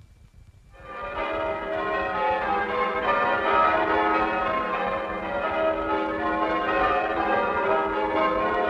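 Many bells ringing together in a dense, continuous peal, fading in about a second in over a low rumble.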